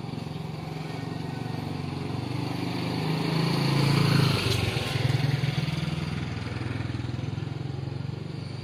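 A motorcycle riding past close by: its engine grows louder, is loudest about four seconds in, then fades away.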